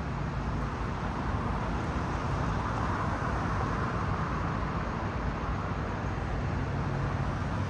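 Steady street traffic noise: a low engine hum under a wash of road noise that swells a little in the middle and then eases.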